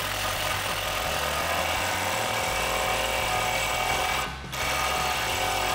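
Milwaukee Fuel cordless impact wrench hammering a bolt tight against a wrench held on the nylock nut, running for about four seconds, stopping briefly, then a second burst.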